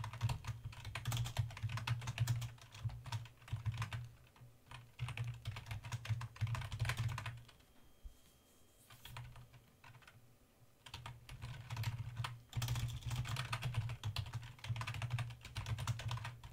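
Typing on a computer keyboard: quick runs of key clicks, with a lull of a few seconds midway before typing resumes.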